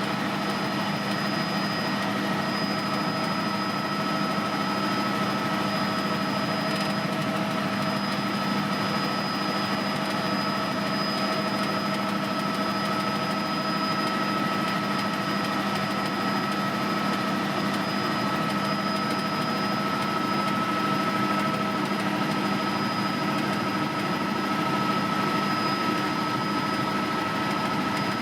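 Helicopter in steady flight heard from on board: an even engine and rotor drone with several constant whining tones, unchanging throughout.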